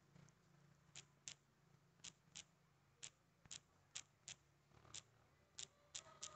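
About a dozen faint, sharp clicks of keys being tapped one by one on a smartphone's on-screen keyboard while a name is typed, irregularly spaced at two or three a second.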